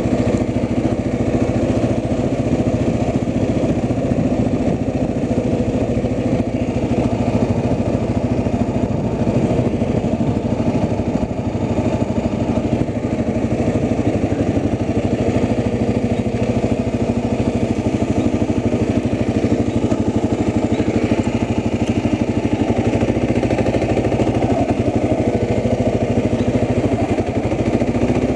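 Small engine running steadily at one constant speed, without let-up.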